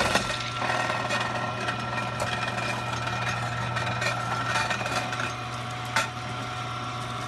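Angel twin-gear juicer's motor running with a steady hum as it presses a carrot. A single knock sounds about six seconds in.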